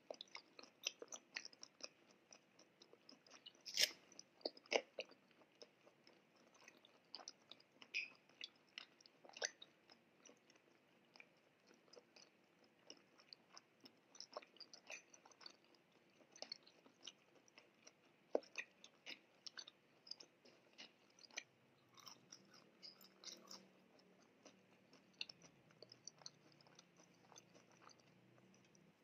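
A person chewing a bite of chicken steak close to the microphone with the mouth closed, making soft, irregular wet clicks and smacks, a few of them louder about four to five seconds in.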